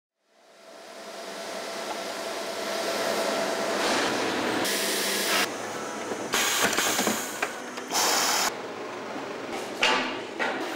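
Factory floor noise fading in: machinery running steadily, with several short bursts of hiss and a few sharp knocks in the second half.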